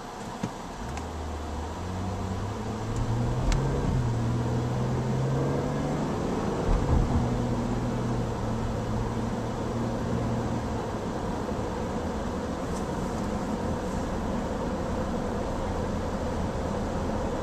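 Car pulling away from a standstill, heard from inside the cabin: the engine note rises as it accelerates, there is a gear change with a couple of thumps around seven seconds in, and it then settles into steady cruising with engine drone and tyre noise.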